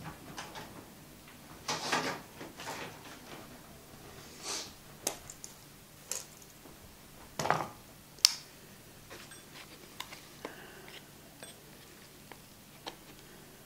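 Small cardboard product box being handled and opened: scattered rustles, taps and light clicks at irregular intervals, with one sharp click about eight seconds in.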